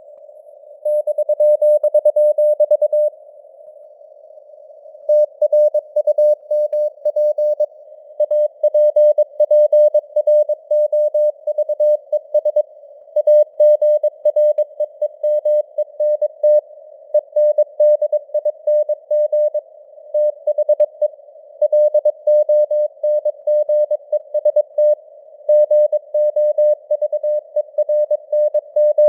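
Morse code sent at about 22 words per minute as a single mid-pitched beep keyed rapidly on and off, spelling out news headlines, in a narrow hiss of simulated radio noise with simulated fading (QSB). The keying starts about a second in and breaks off for about two seconds around the three-second mark, leaving only the hiss, then runs on in bursts separated by brief pauses between words.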